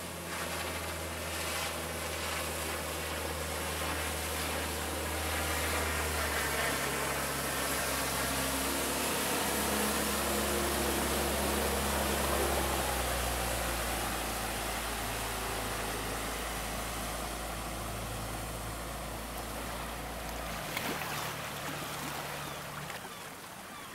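Boat engine running with a steady low hum under rushing water noise; the hum shifts pitch several times and falls away near the end.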